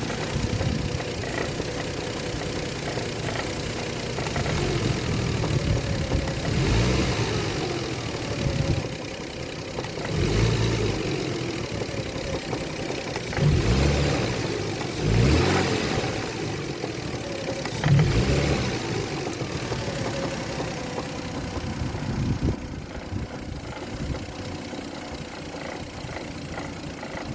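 Toyota 2JZ VVT-i straight-six engine idling and being revved in several short blips, with a knock in it whose cause the owner is asking about.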